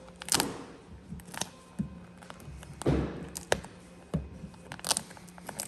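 Irregular handling noises: scattered sharp taps and clicks, about eight in all, with a dull thump about three seconds in, over a faint steady low hum.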